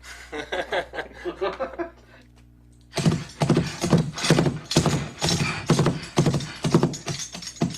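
Foley playback of a horse: hoofstep impacts made with hoof props, a few a second, together with bridle jingle and horse snorts, starting loud about three seconds in after some quiet talk.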